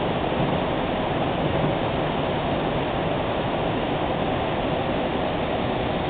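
Fast mountain stream rushing over rocks and pouring down a small waterfall beside the road: a steady, unbroken rush of water.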